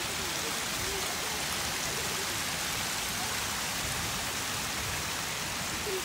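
Erupting geyser and its boiling runoff: a steady, even hiss and rush of spraying hot water and steam.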